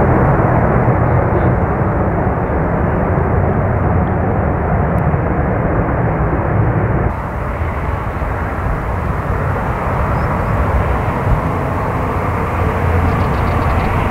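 Airbus A350-900's Rolls-Royce Trent XWB turbofan engines running at low taxi thrust as the airliner taxis, a steady jet-engine noise that drops a little in level about halfway through.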